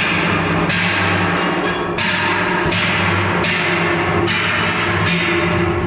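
Background music with a steady beat: sustained low notes under a bright percussive hit about every three-quarters of a second.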